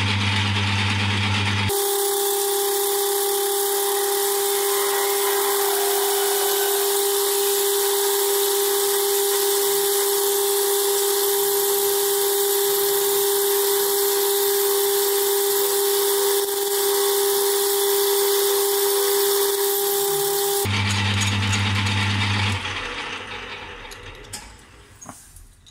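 Metal lathe drilling into a spinning Ergal aluminium bar with a 16 mm bit from the tailstock. A steady whine with hiss while the bit cuts, set between stretches of the lathe's lower running hum. Near the end the lathe shuts off and fades away.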